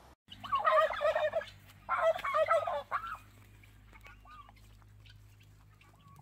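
A farm bird calling: two loud bursts of rapid, warbling calls in the first three seconds, then a few faint short calls.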